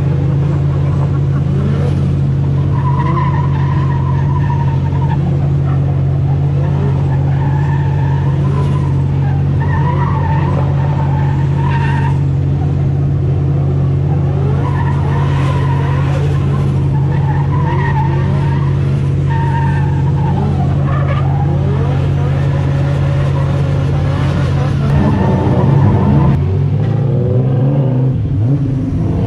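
A drift car's engine idling close by with a steady low drone while another drift car slides around farther off with intermittent tyre squeal. About 25 seconds in, the nearby car revs up and pulls away, its engine pitch rising and shifting.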